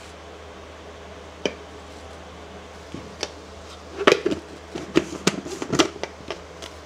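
Plastic clicks and taps from a plastic rice-flour jar: a spoon knocking on the jar a couple of times, then a quick run of sharp clicks as the plastic lid is put back on, about four seconds in.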